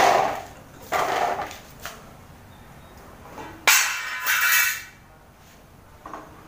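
Hard objects knocking and clattering: a knock as the black plastic box is lifted off the tiled floor, another about a second later, and a longer, louder scraping clatter about four seconds in.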